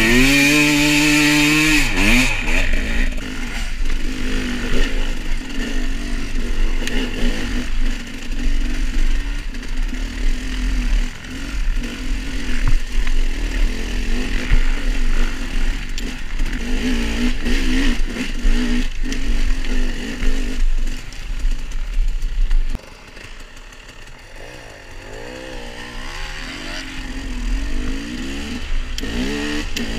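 KTM 300 XC-W two-stroke dirt bike engine ridden on a trail, revving sharply up at the start and then rising and falling with the throttle over rough ground, over a low rumble of wind on the microphone. About 23 seconds in the throttle closes and the engine goes quieter, building again near the end.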